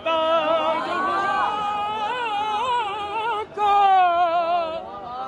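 A man singing a qasida, a devotional song in praise of Imam Hussain, in a high, ornamented voice with wavering pitch; he breaks off briefly about three and a half seconds in, then comes back louder.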